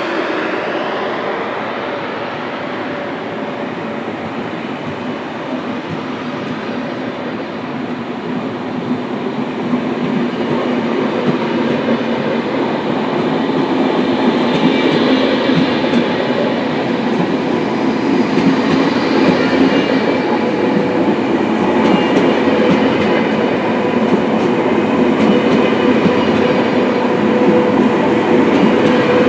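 SBB double-deck passenger train rolling past along the platform, its wheels clicking over the rail joints, getting louder about a third of the way in. Near the end a steady hum comes in as an ICN tilting electric train pulls in on the next track.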